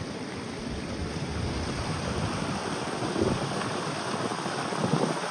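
Seawater from the waves spilling over a rock ledge and churning into a rock pool: a steady rush of foaming water that swells for a few seconds after the middle.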